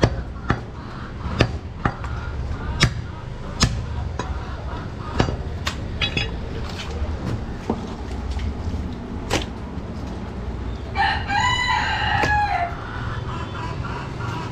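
A heavy cleaver chops goat meat and bone on a wooden butcher's block, sharp knocks at irregular intervals. About eleven seconds in, a rooster crows once, for under two seconds.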